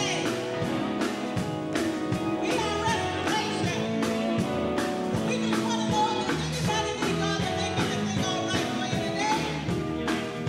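Live gospel vocal group of women singing lead and harmony parts over a live band of electric guitars and drum kit, with a steady beat.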